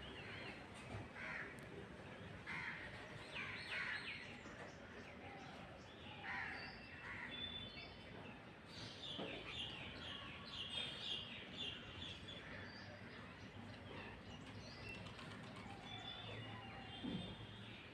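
Several birds calling and chirping, with short repeated calls overlapping throughout.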